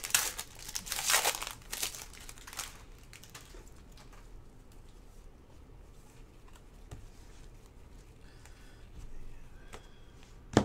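A foil trading-card pack torn open and crinkled by gloved hands, loud crackling through the first three seconds. Then fainter rustling as the cards are slid out and handled, with a sharp click near the end.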